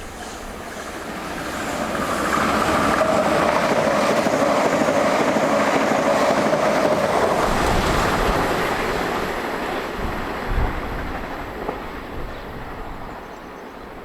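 Class 395 'Javelin' electric multiple unit passing through the station without stopping: a rush of wheel and motor noise with a steady whine, swelling over the first two seconds, holding loud, then fading away over the second half.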